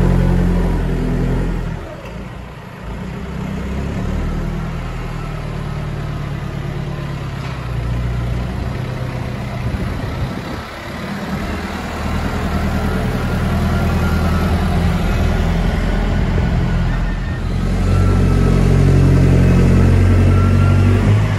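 Massey Ferguson tractor diesel engines working on a silage clamp, the engine note rising and falling with the throttle as the tractor drives over the grass heap. About seventeen seconds in the engine sound becomes louder and steadier as the buckrake tractor pushes grass up the pit.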